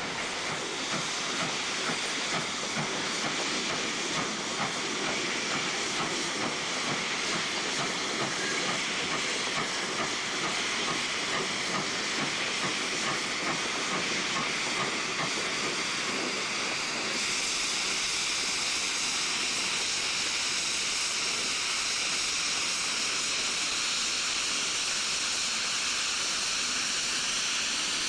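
4-8-2 colliery steam locomotive hissing as steam escapes around its cylinders while it moves slowly, with irregular knocks under the hiss at first. About two-thirds of the way through, the hiss turns steadier and brighter.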